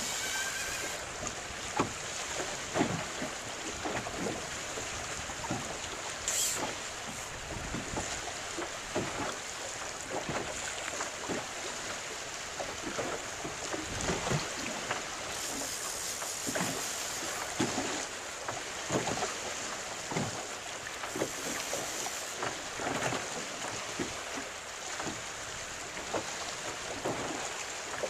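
Choppy water lapping and slapping against a small boat's hull in irregular splashes, over a steady hiss of wind on the microphone.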